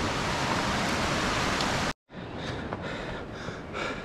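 Steady rushing noise of a fast-flowing mountain river, cut off suddenly about halfway through. A quieter hiss with soft, irregular taps follows.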